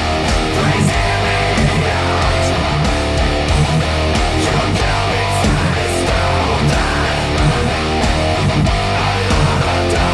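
Heavy metal music: a high-gain electric guitar run through a Fractal AX8 amp modeller plays a dense, chugging riff, with a steady low end and sharp percussive strokes in the mix.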